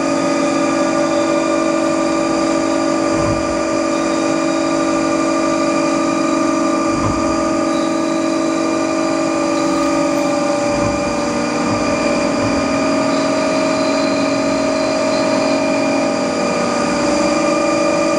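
1999 Haas SL-30T CNC lathe with its spindle turning at a steady speed, giving a steady whine of several pitches at once, while the rough turning tool cuts the spinning workpiece.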